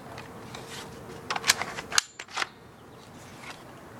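Handling clicks from an airsoft M-16 rifle: a quick run of about five sharp plastic clicks and knocks between one and two and a half seconds in. A faint steady hum stops abruptly at one of the clicks.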